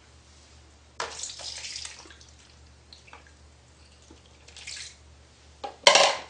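Water splashing and sloshing in a bathtub around a cat sitting in it, in short bursts: one about a second in, another around four and a half seconds, and the loudest splash just before the end.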